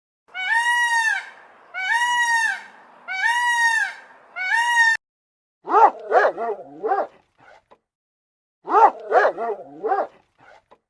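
An animal calling: four drawn-out, arching cries about a second apart, then after a pause two bursts of quick, short, high calls.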